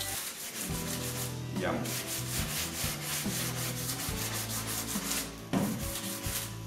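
Hand block-sanding of a car's painted front fender: a sanding block scrubbed back and forth over the panel in quick, even strokes. The sanding is a guide pass that makes the dips and low spots in the fender show up.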